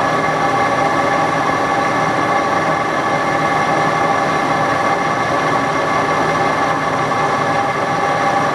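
Metal lathe running at constant speed, its drive giving a steady whine of several tones, while a small center drill in the tailstock chuck feeds into the end of a spinning brass part.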